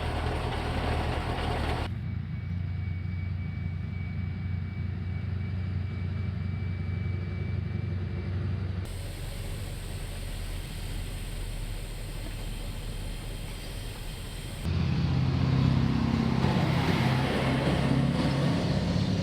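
Heavy military vehicle's diesel engine running steadily, the sound changing abruptly several times as the footage cuts between shots; it is loudest and deepest in the last few seconds.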